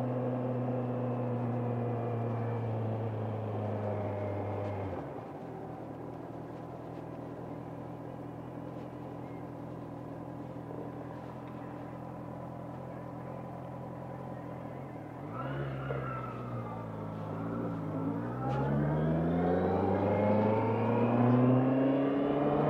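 Honda CBR650R inline-four motorcycle engine. Its note falls as the bike slows for the first few seconds, then settles into a quieter steady idle for about ten seconds. It then revs and climbs in pitch, getting louder, as the bike pulls away and accelerates.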